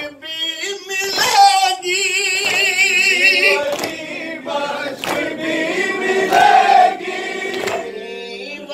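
Men chanting a noha (Shia lament) together, one voice leading over a microphone, with a slow, even beat of hands striking chests (matam) about every second and a half.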